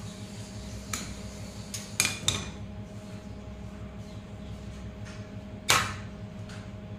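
A loose pane of window glass clinking and knocking against the concrete floor and nails as it is handled: four sharp hits, the loudest near the end, over a steady low hum.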